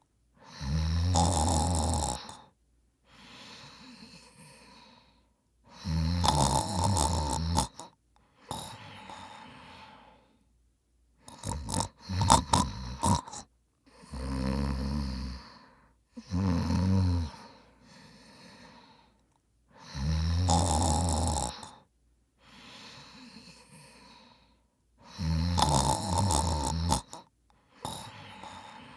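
A man snoring: loud, fluttering snores every three to five seconds, alternating with quieter breaths, and a run of sharp snorts and clicks about eleven to thirteen seconds in.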